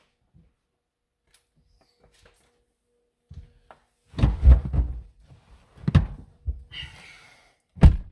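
A series of heavy thumps and knocks, several close together about three to five seconds in, another about a second later, a brief rustle, and one sharp thump near the end, with faint clicks before them.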